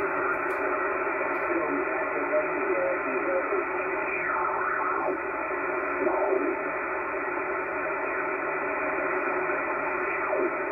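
Kenwood HF transceiver's speaker putting out a steady wash of 75-metre band static and noise, with warbling, sliding snatches of signal as the tuning knob is turned. The noise blanker does not cut the noise, a sign of heavy interference on the attic-mounted end-fed wire antenna.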